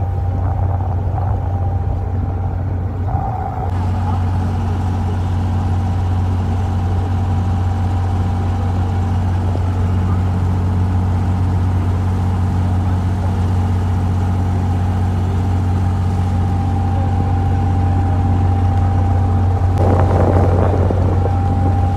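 Diesel engine of a Dubai abra, the wooden creek water taxi, running steadily as a low drone with a faint steady whine above it, heard from on board. A brief rush of noise comes through about 20 seconds in.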